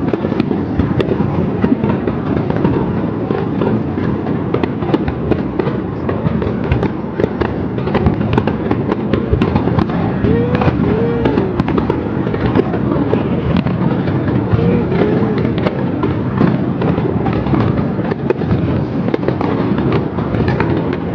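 Aerial fireworks display: shells bursting in a dense, continuous crackling and popping, with a couple of short rising-and-falling tones about halfway through.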